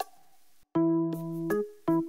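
Background music: short struck notes and chords that each die away, with a brief full cut-out just after half a second in.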